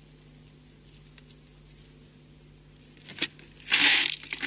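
Beads strung on fishing line being handled: a few small clicks about three seconds in, then a brief loud rustle and clatter of the beads, over a faint steady hum.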